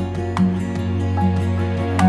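Gentle instrumental background music: a held bass note under a slow melody of changing notes.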